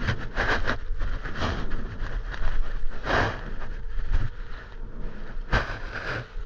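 Irregular rubbing and scraping handling noises, a string of short bursts, as a rubber handlebar grip is worked onto an e-bike handlebar.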